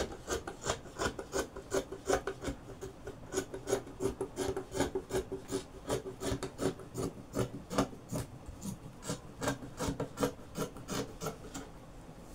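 Scissors cutting through sequin velvet fabric laid on a table: a quick, even run of snips, about four or five a second, stopping near the end.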